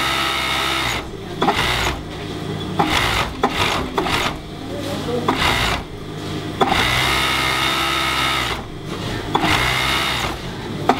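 Industrial sewing machine stitching a cotton T-shirt, running in bursts of one to two seconds that stop and restart several times as the fabric is fed through.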